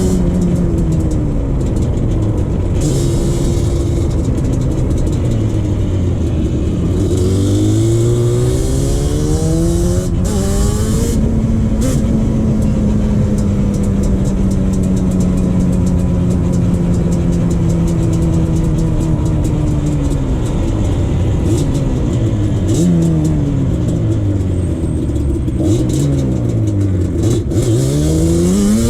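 2001 Yamaha Banshee 350's twin-cylinder two-stroke engine under riding load, its pitch climbing and dropping repeatedly as the throttle is worked. It holds a long steady pitch through the middle, then revs up and down in quick succession near the end.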